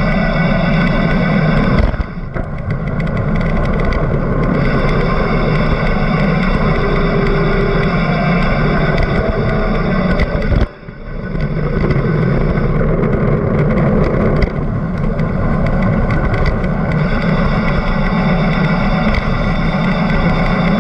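Competition car engine run hard at high revs, with two short dips as the throttle is lifted or a gear is changed, about two seconds in and again near the middle, each followed by the engine pulling hard again.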